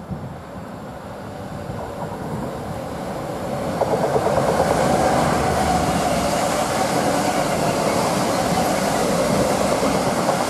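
A convoy of several Class 66 diesel-electric locomotives passing close by, their two-stroke EMD V12 engines running. The sound grows louder over the first four seconds and then holds loud as the locos go by. Wheels click over rail joints about four seconds in.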